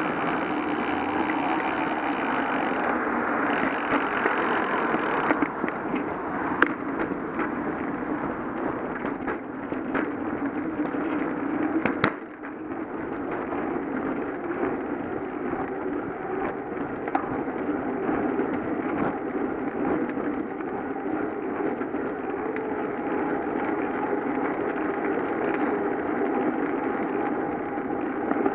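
A bicycle rolling along a road, heard from a camera mounted on the bike: steady tyre and wind noise with scattered clicks and rattles, and one sharp knock about twelve seconds in.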